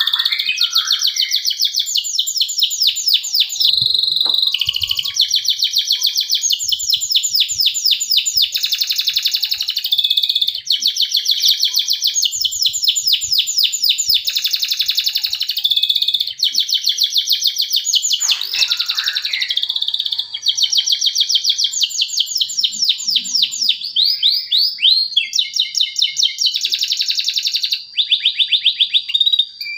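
Male domestic canary singing a long, unbroken song of fast trills, switching from one repeated phrase to the next every second or two. It is a lure recording, played to prompt other canaries into song.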